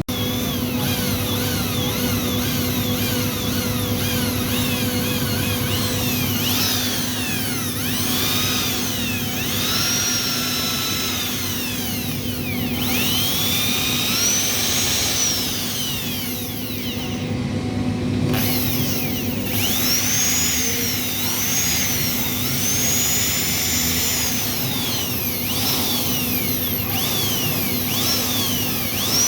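Electric drill drilling into a cold-room door frame, its motor whine rising and falling again and again as the trigger is worked, with quick short rises in the first few seconds and longer swells later. A steady low hum runs underneath.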